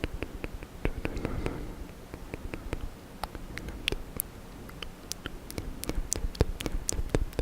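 ASMR mouth sounds close to the microphone: wet clicks and smacks of lips and tongue, many a second and irregular.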